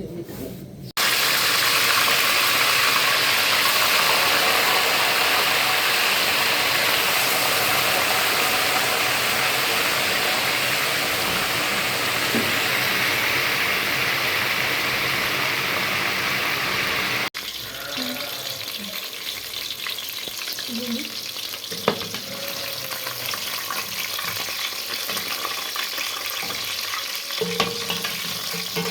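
Pieces of marinated chicken frying in hot oil: a loud, steady sizzle, then after a cut about two thirds of the way through, a quieter crackling fry with scattered clicks.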